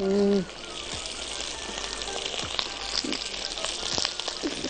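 Steady sizzling hiss from egg noodles cooking in broth in a pot on the stove, with a few clicks of tongs against the pot. A short hum of a voice right at the start.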